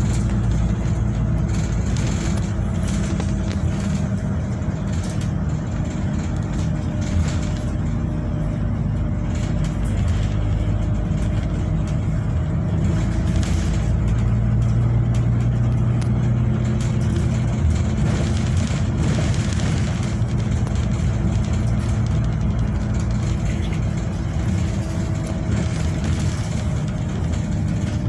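A bus engine and road noise heard from inside a moving bus: a steady low drone with engine tones that drift gently in pitch, and a few brief rattles.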